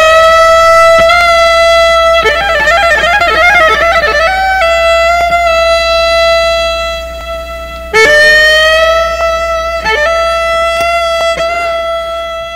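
Music: a single instrument holds a long high note, warbles quickly for a couple of seconds, then settles again. A new note starts about eight seconds in and fades away near the end.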